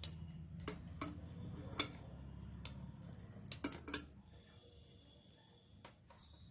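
Metal knitting needles clicking against each other as stitches are worked: several sharp, irregularly spaced clicks, with a quick run of three a little past halfway, over a steady low hum.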